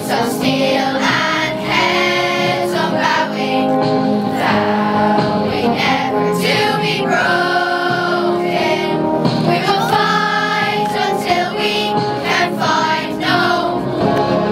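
A group of schoolchildren singing a song together as a choir.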